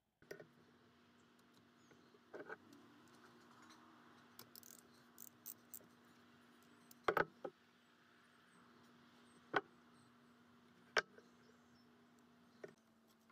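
Hand tools on the cast-iron housing of an old electric motor being taken apart: scattered metal clicks and clinks, with a few sharper taps, over a faint steady hum.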